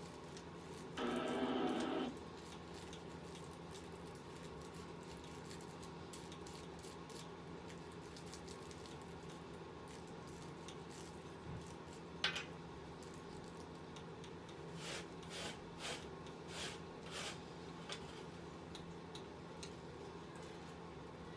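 Low steady room hum with a brief loud rushing noise about a second in and a single sharp click near the middle. Later comes a run of short, faint scrapes and rustles of herb being broken up and picked at by hand on a rolling tray.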